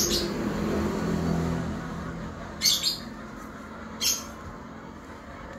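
Two short, high bird calls about a second and a half apart.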